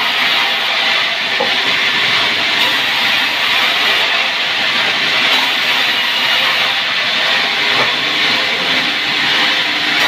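Sawmill saw cutting sengon timber into beams, a loud, steady, even noise without breaks.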